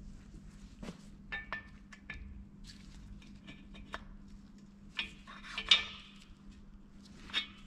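Scattered light metallic clinks and taps, some briefly ringing, the loudest a little before six seconds in: a piston ring and ring-squaring tool being worked into a cylinder bore of a Ford Zetec engine block to set the ring square for an end-gap check.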